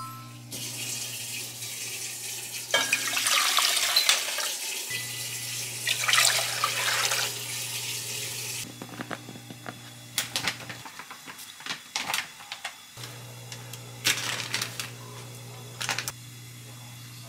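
Water running from a tap into a sink for several seconds, cut off suddenly, then scattered light clinks and knocks of dishes or utensils.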